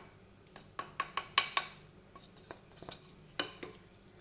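Metal spoon clinking and tapping against a pressure cooker pot: a scatter of light, sharp clinks, bunched in a quick run about a second in and again near the end.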